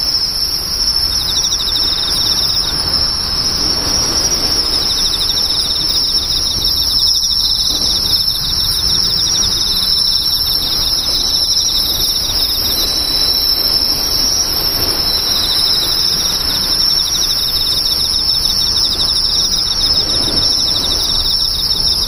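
Steady chorus of crickets trilling, a continuous high-pitched ringing band, with a second, finely pulsed trill just below it fading in and out.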